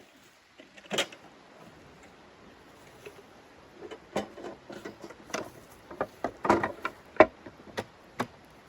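Irregular clicks and knocks with some rustling, as of things being handled: a sharp knock about a second in, then a busier cluster of knocks from about four seconds in, the loudest just past seven seconds.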